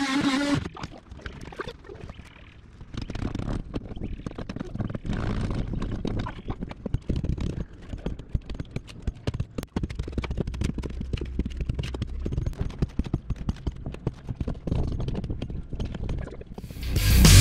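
A pry bar working loose rotted marine-plywood transom core from the fiberglass skin: an irregular run of knocks, cracks and scrapes of splintering wood, over a low rumble. Loud music comes in near the end.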